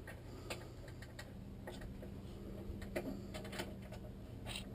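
A few faint, irregular clicks and taps of hand tools and metal parts being handled, over a low steady hum.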